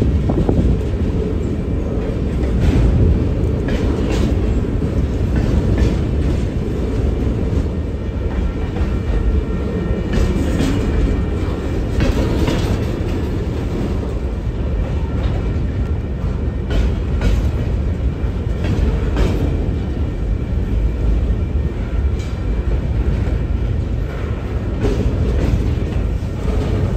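Freight train of cars loaded with garbage containers rolling past at slow speed: a steady low rumble of steel wheels on rail, with repeated clacks as the wheels pass over rail joints.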